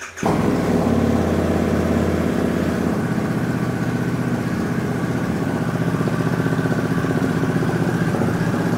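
Harley-Davidson Pan America Special's Revolution Max 1250 V-twin catching right at the start and running, revving a little higher for about two seconds before settling to a steady idle. This is the first run after a fresh oil and filter change, before the oil level is checked.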